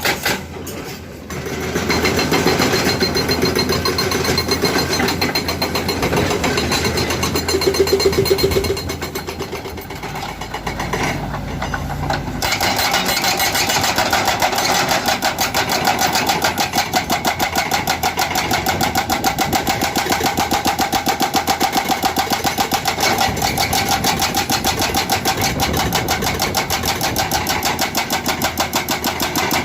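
Excavator-mounted hydraulic breaker hammering rock in a fast, steady train of blows, with the excavator's engine running under it. The hammering eases briefly about a second in and again around ten to twelve seconds, then runs on evenly.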